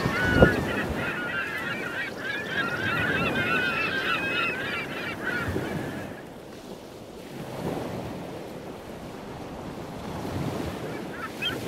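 Seaside soundscape: a flock of gulls crying over the wash of waves and wind. The calls are thick for the first six seconds, die away, and come back near the end, with a single low thud about half a second in.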